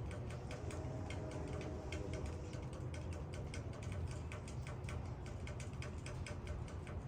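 Rain falling on leaves: many small, irregular drop taps over a steady low rumble.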